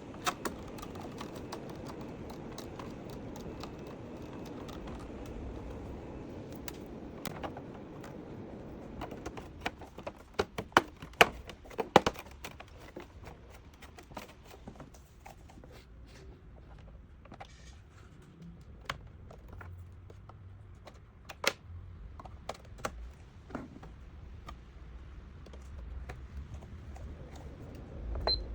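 Irregular clicks and taps of hard objects being handled, with a burst of sharper knocks about ten to twelve seconds in, over a low steady hum.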